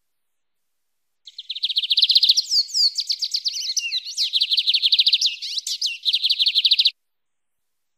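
Lined seedeater (bigodinho) singing its wild-type 'canto mateiro' song. One phrase starts about a second in and lasts about five and a half seconds, made of fast trills of rapidly repeated high notes with a few sweeping slurred notes in the middle, then stops abruptly.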